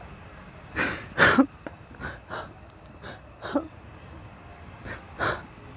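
A person crying, with short gasping sobs that come in pairs, four pairs in all.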